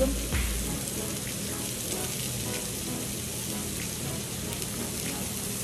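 Pork sizzling on a tabletop grill: a steady hiss with a few faint spits and crackles.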